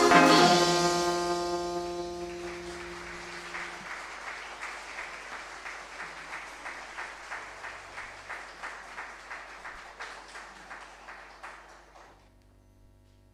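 A wind band's final chord, brass and saxophones together, rings out and dies away over the first few seconds. Audience applause follows, with steady individual claps, and fades out about twelve seconds in.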